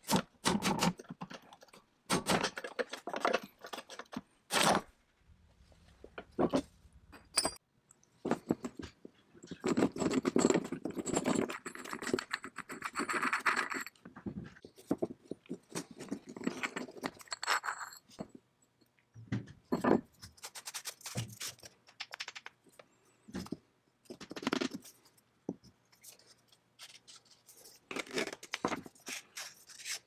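Metal parts of an antique brace-wrench multi-tool being taken apart by hand: scattered clicks, clinks and knocks of metal fittings twisted, pulled and set down on a wooden bench, with a few seconds of steady scraping about a third of the way in.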